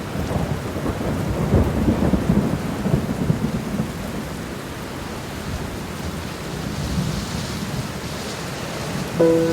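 Steady rain with a rumble of thunder through the first few seconds that then dies away, leaving the rain hiss alone.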